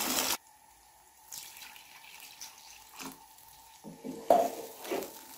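Water poured into a pot of hot fried beef and spices, splashing and hissing, then cutting off suddenly just after the start. After that, a few faint soft knocks of a wooden spoon stirring the thin curry.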